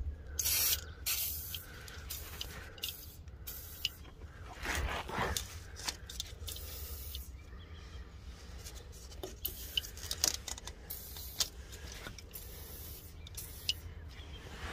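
Aerosol can of WD-40 penetrating spray hissing in short bursts onto rusty engine-mount bolts, with a few clicks and scrapes in between.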